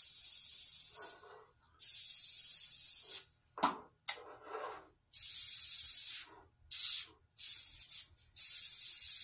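Airbrush spraying paint onto a T-shirt in short, repeated bursts of high hiss, starting and stopping as the trigger is worked, about six bursts in all.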